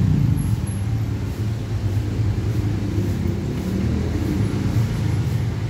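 Electric hair clipper running with a steady low buzz.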